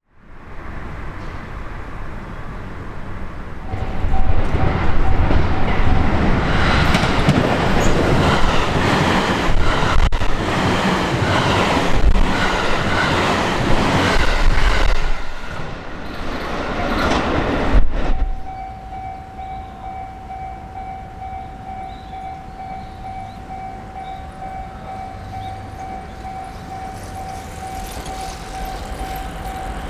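A JR Hanwa Line train passes over a level crossing, its wheels clattering over the rail joints. The loud passage lasts about fourteen seconds and ends suddenly. After it, the crossing's warning bell is left ringing steadily.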